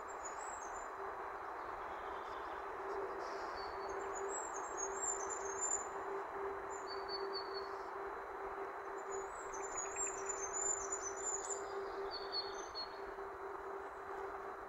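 Small songbirds singing very high, thin twittering phrases, with a longer run about four seconds in and another about nine seconds in, and a few lower short notes between them. Underneath runs a steady background rush and a steady low hum.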